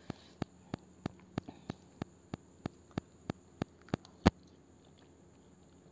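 Metal fork clicking against a plastic bowl in an even rhythm, about three clicks a second, while noodles are twirled, ending in one sharper click a little after four seconds in.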